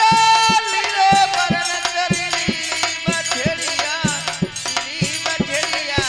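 Indian devotional bhajan music: a sustained melodic line over a steady beat of hand-drum strokes with a rattle.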